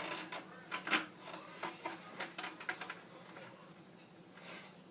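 Light clicks and taps of a screw and its hardware being handled and fitted into the plastic ear of a stormtrooper helmet, with a cluster of quick clicks in the first three seconds and a brief rustle near the end.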